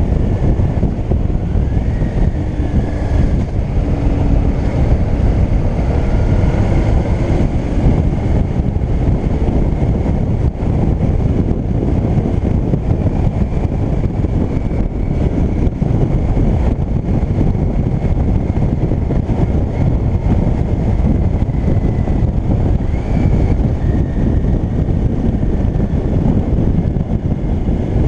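Yamaha DragStar Classic's V-twin engine running steadily at cruising speed, mixed with heavy wind rush on the camera microphone.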